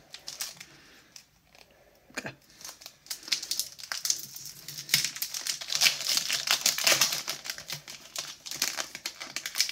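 Foil Pokémon booster pack being opened by hand, its wrapper crinkling. There is a single crackle about two seconds in, then a dense run of crackles from about three seconds on.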